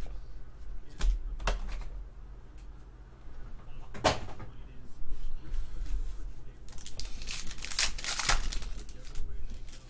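Packs of cards handled out of a cardboard box, with clicks and a sharp knock about four seconds in as the stack is set down; then a foil trading-card pack crinkling and tearing open near the end.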